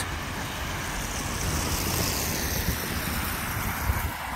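Road traffic: cars driving past on a street, a steady hiss of tyres with engine noise underneath.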